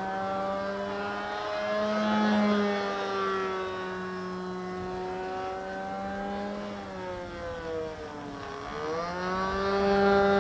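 Engine of a radio-controlled Phoenix Edge 540 model plane with a can muffler, running steadily in flight. Its pitch wavers, drops sharply about eight and a half seconds in, then rises again, and it grows louder near the end.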